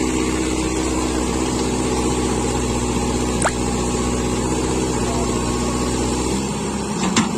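Tractor engine running at a steady speed, its note shifting about six and a half seconds in, with a sharp click midway and another near the end.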